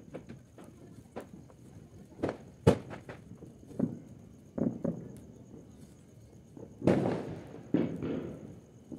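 Firecrackers going off: a series of separate sharp bangs, the loudest just before three seconds in, and a longer burst with a trailing decay about seven seconds in.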